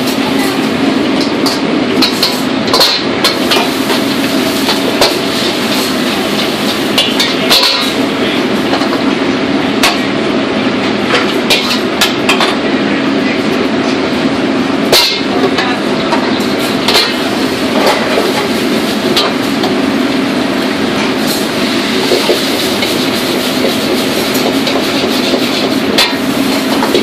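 Commercial wok range running with a loud, steady rush of its high-powered burners and exhaust hood, broken by scattered sharp metal clanks of a ladle against the woks.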